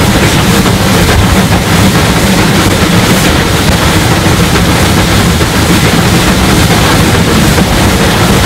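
Rebuilt SR Merchant Navy class three-cylinder Pacific steam locomotive working a train, heard close up from the open front window of the train: a loud, dense, steady wash of exhaust, wheel and wind noise with a low hum underneath and faint irregular knocks.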